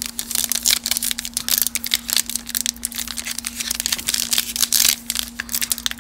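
Foil wrapper of a baseball card pack crinkling and tearing as it is peeled open by hand, a dense, irregular crackle throughout.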